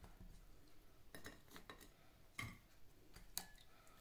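Near silence with a few faint, scattered taps and clicks, the sharpest about three and a half seconds in: soaked ladyfingers and fingers knocking lightly against a glass bowl.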